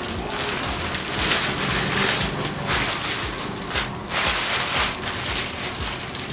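Thin plastic bag crinkling and rustling as a tripod is pulled out of it, in uneven surges, with light knocks of the tripod being handled.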